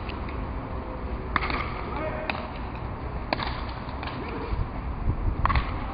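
Sharp knocks of a grosse pala rally: the hard pelota ball struck by the heavy wooden pala and rebounding off the fronton wall and court. There are four separate cracks, at uneven gaps of about one to two seconds.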